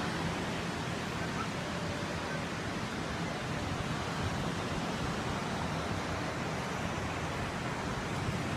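Steady rushing noise of wind and distant ocean surf, even and unbroken throughout.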